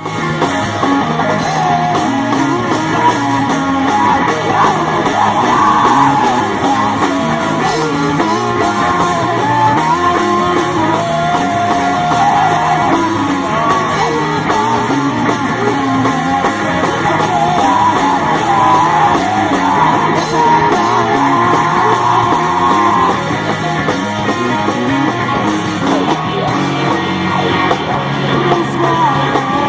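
Rock band playing a loud, dense song live, with guitars, drums and yelled, sung vocals.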